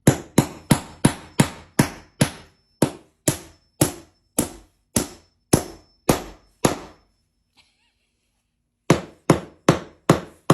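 A steady run of sharp, hard knocks like hammer strikes, about two and a half a second, each ringing briefly; they stop for about two seconds past the middle, then start again.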